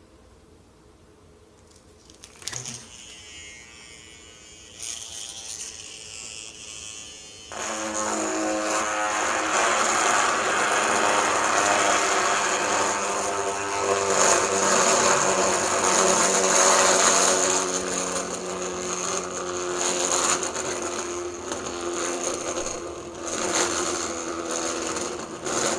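Merit toy gyroscope set spinning, with a click a little in and then a whirring hum. About seven seconds in the hum turns into a loud, steady buzzing rattle as the spinning rotor's pivot runs on its metal tower stand, and it goes on while the gyroscope precesses.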